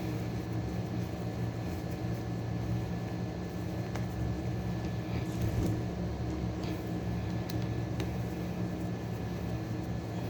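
Steady low mechanical hum, like a fan or motor running, with a few faint clicks.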